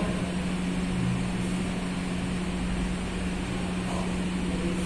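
A steady hum with one constant low tone over an even background hiss, unchanging throughout.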